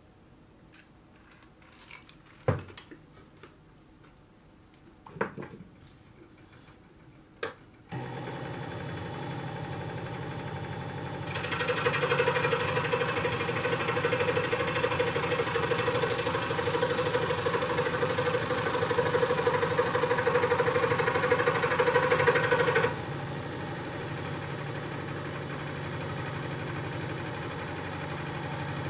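A few sharp handling knocks, then a powered jigsaw switches on about eight seconds in and runs steadily. From about eleven seconds it gets much louder as the blade cuts through balsa wood, then at about twenty-three seconds it drops back to the saw running with nothing in the blade.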